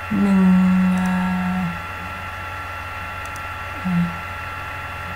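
A voice holding a long hesitant "ừm" of about a second and a half, then a short one near the end, over a steady electrical hum.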